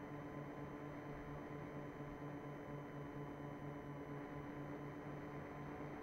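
Electric RC plane's motor and propeller running at a steady throttle, a steady whine with a regular low throb under a hiss of rushing air.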